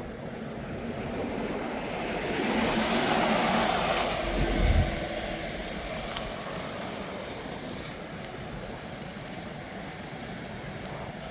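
A vehicle passing close by: its noise swells over a couple of seconds and fades, with a brief low rumble at its loudest, then steady outdoor background noise.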